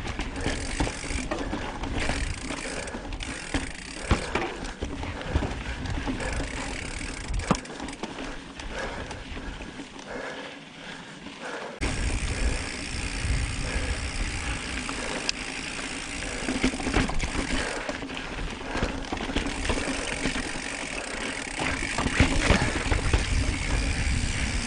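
Mountain bike being ridden over rocky singletrack: tyres rolling over rock and dirt, with many sharp knocks and rattles from the bike over bumps, under a steady rumble of wind on the microphone. The rumble and the rattle get suddenly louder about twelve seconds in.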